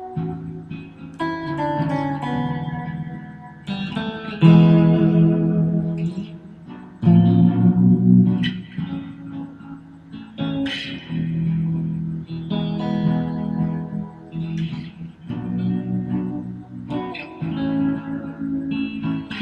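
Fender Stratocaster electric guitar played slowly: chords and single notes picked every couple of seconds and left to ring out.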